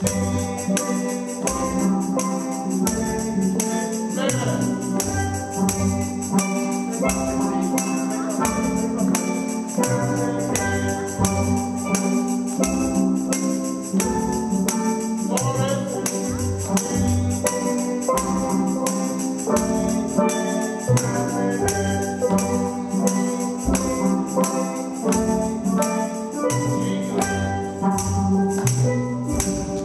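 A children's steel pan band playing a tune: a steady rhythm of struck, ringing pan notes with percussion keeping the beat.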